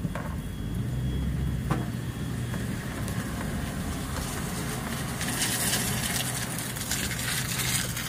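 Car engine and road noise heard from inside the cabin as the car drives slowly, with a steady low hum. About five seconds in, a louder rushing hiss comes up and lasts nearly three seconds.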